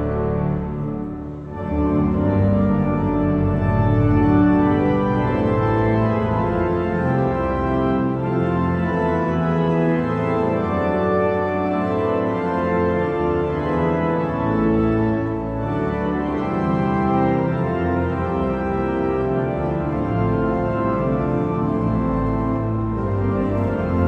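Pipe organ of St. Stephen's Cathedral playing a hymn in full sustained chords with a deep bass. It dips briefly about a second in before the next chord enters.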